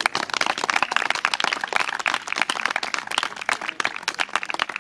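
Audience applauding: a dense, irregular run of hand claps, many a second, in which single claps can still be told apart.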